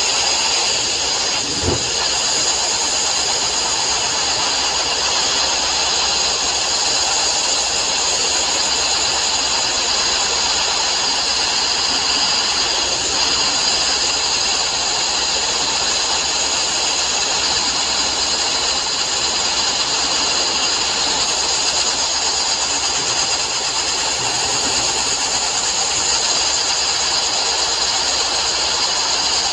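Abrasive blast nozzle hissing steadily as steel plate is sandblasted, with one short knock about two seconds in.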